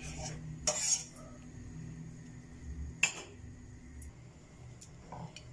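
Metal spoon and stainless-steel frying pan clinking on a gas stove: two sharp knocks, one a little under a second in and one about three seconds in, with a few faint ticks after.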